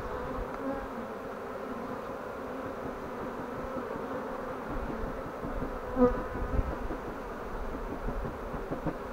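A swarm of honeybees buzzing: many bees in a steady dense hum, with a brief louder buzz about six seconds in.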